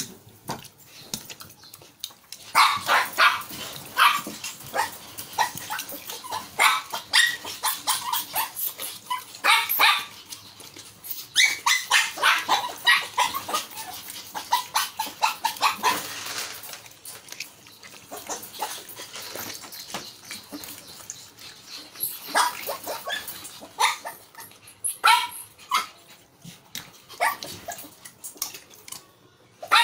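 Dog barking and yipping in quick, irregular bursts, mixed with sharp clicks and knocks, with a quieter spell about two-thirds of the way through.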